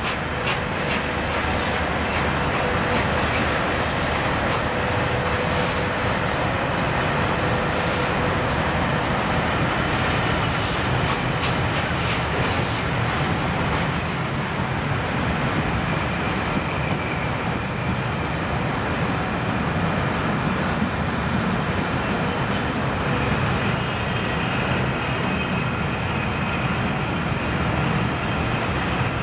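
Steam locomotive working a passenger train out over curved pointwork, its exhaust mixing with the steady rumble of the coaches on the rails and a thin squeal in the first several seconds.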